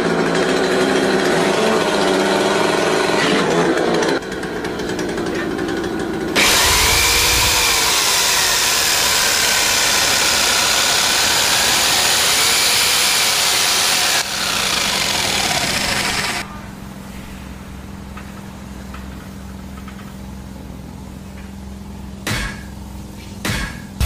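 Chainsaws cutting wood. For several seconds in the middle, a cordless chainsaw's whine dips and recovers twice as it cuts through a thick timber beam. After that comes a quieter steady hum with two short knocks near the end.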